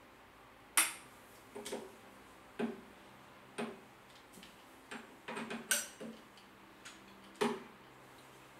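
Sharp clicks and knocks at uneven intervals from a tripod leg tube being handled and wiped, with the loudest about a second in and near the end.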